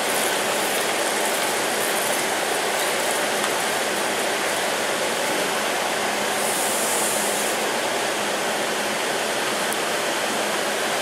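Hot case-hardened mild steel V-block quenched in a bucket of water and swished through it in a figure eight: a steady rushing hiss and bubbling of water boiling off the hot steel, with a brief sharper hiss partway through.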